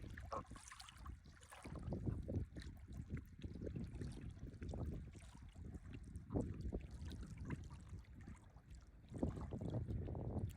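Wind buffeting the microphone in uneven gusts, a low rumble that swells and fades, with scattered small clicks and rustles over it.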